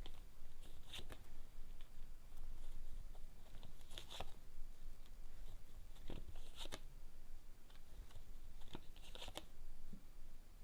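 Lenormand cards being handled, shuffled and laid out: soft, brief rustles and card snaps every two to three seconds.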